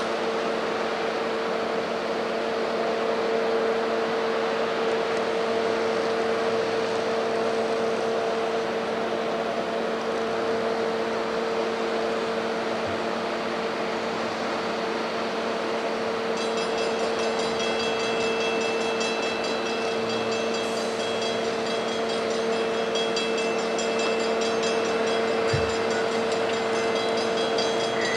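A steady hum with a constant drone. About two-thirds of the way through, a railroad grade-crossing bell starts ringing rapidly in the distance and keeps ringing, the warning that a train is approaching.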